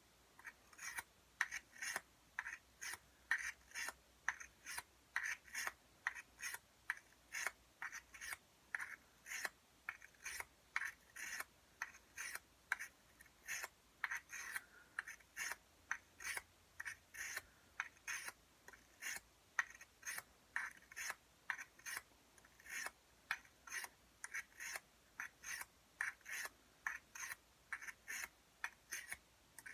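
Steel dagger blade being drawn across an oiled medium-grit sharpening stone, a steady run of short rasping strokes at about two a second.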